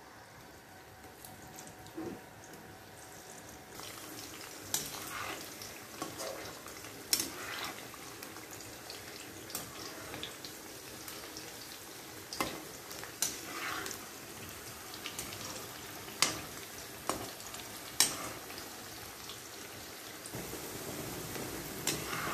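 Par-boiled potato sticks deep-frying in vegetable oil in a steel wok on their first fry: a steady sizzle of moisture bubbling out, with scattered sharp clicks and pops as a slotted metal spoon stirs them. The sizzle grows about four seconds in and again near the end.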